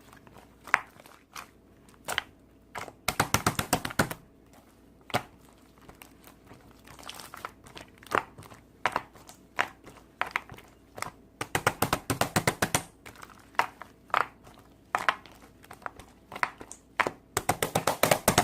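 Crunchy slime being pressed and squeezed by hand, giving sharp crackling pops, single ones here and there and three dense runs of rapid crackles.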